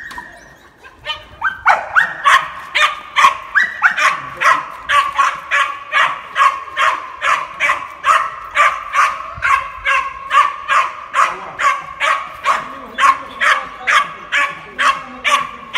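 A two-and-a-half-month-old puppy barking rapidly and steadily, about two to three barks a second, worked up by a rag being waved for it to bite; a short high whine comes just before the barking starts.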